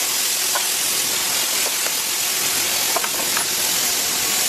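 Steady hiss with a few faint, light clicks from metal pump parts being handled.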